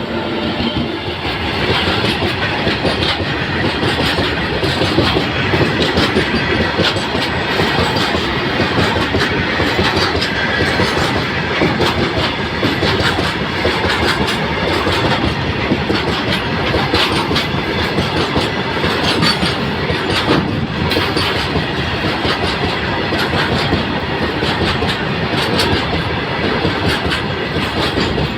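Goods train passing, its wagon wheels clattering steadily over the rail joints with a dense run of clicks.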